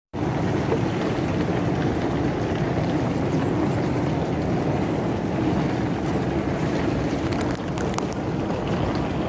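Steady, even rumbling noise of a busy airport terminal hall, heard while walking through it, with a few faint ticks near the end.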